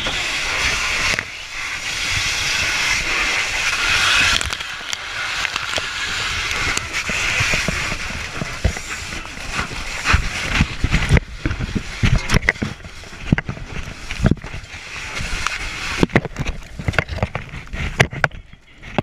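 A steady rushing hiss for the first several seconds, then irregular knocks, thumps and scrapes of firefighting gear and hose being handled close to the helmet camera.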